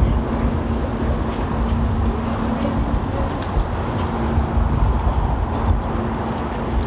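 Car running with engine and road noise, a steady low rumble with a faint constant hum, as heard inside the cabin.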